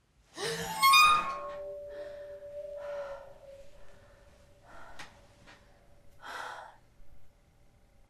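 A woman's loud sharp gasp as she wakes with a start, followed by a few heavy breaths, over a steady held musical tone.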